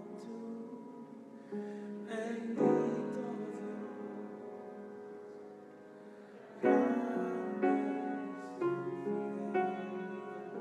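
Slow worship music played on a keyboard: held chords struck one after another, the first fading slowly, then a new chord about once a second near the end.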